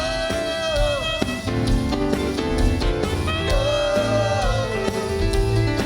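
Instrumental passage of an upbeat rock song, with a lead instrument holding long, bending notes over bass and drums.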